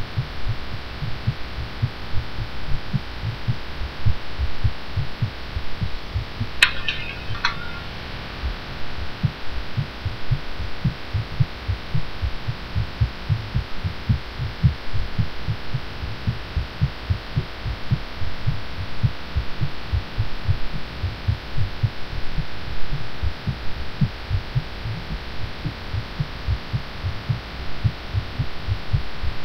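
A woman's fast heartbeat, a steady run of low thumps over a background hum and hiss, recorded while she was sick after taking cough medicine. A brief patter of keyboard clicks comes about seven seconds in.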